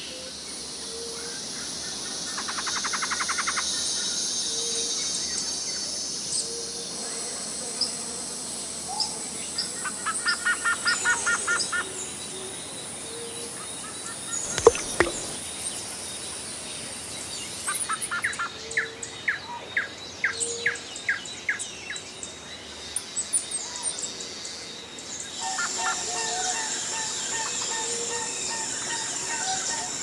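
Tropical forest ambience: many birds chirping and trilling in short repeated phrases over a steady high insect drone, with a low note repeating every second or two. About fifteen seconds in, a single water drop plinks into a pool, the loudest sound.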